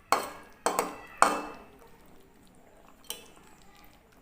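A metal cooking utensil knocking against a pan of simmering chicken stew, four clinks with a short ring: three in quick succession, the third loudest, then one more about two seconds later.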